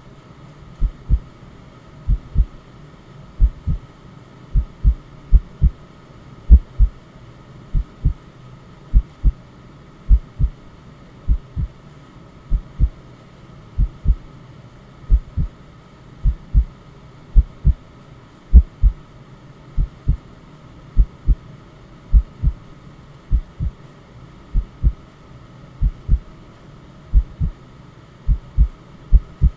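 Heartbeat sound: a steady double thump, lub-dub, repeating about once every second and a quarter over a faint steady hum.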